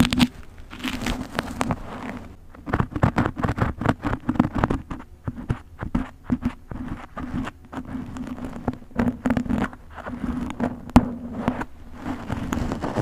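Close-up crackling and scratching as a thin metal pick and fingertips work through a mannequin head's synthetic hair, with many quick irregular clicks.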